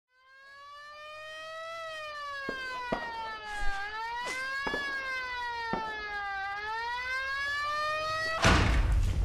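A police siren wailing, its pitch rising and falling slowly in cycles of about two to three seconds, fading in from silence. Near the end a sudden loud rush of noise breaks in.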